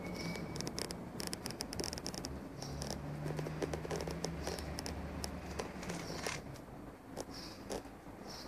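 Scratching, rubbing and clicking handling noise from a handheld phone being moved about, with a low steady hum for a couple of seconds midway.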